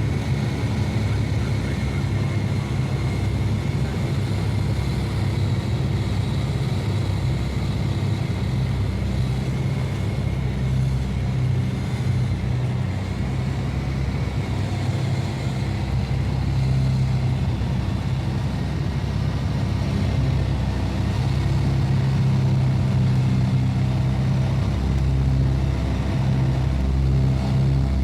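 A motor vehicle's engine running steadily, a low hum with a faint steady whine above it, growing a little louder about two-thirds of the way through.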